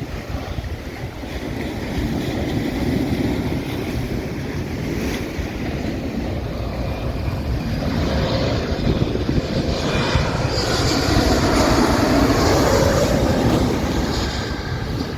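Jet aircraft passing low overhead, its engine noise swelling over several seconds with a faint whine and loudest near the end, over wind on the microphone and surf.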